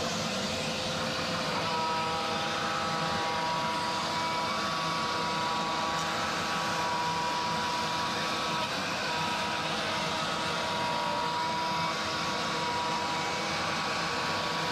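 CNC router milling maple plywood: the spindle and bit cutting under a steady hiss of a vacuum nozzle clearing the chips, with machine whines that set in about a second and a half in and change pitch as the head moves along the toolpath.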